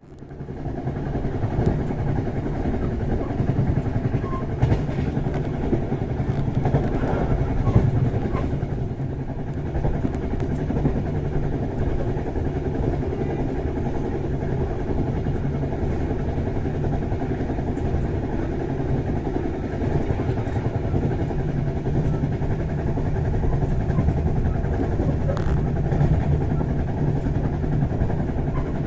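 Passenger train running steadily, a constant rumble and wheel-on-rail noise heard from inside the carriage.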